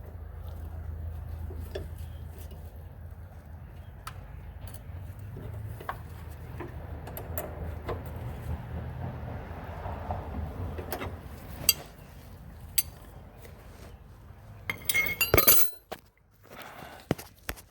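Wrenches clicking and clinking against the metal fittings while the clutch hose and its hard line are tightened, over a steady low hum. The loudest run of clinks comes about fifteen seconds in.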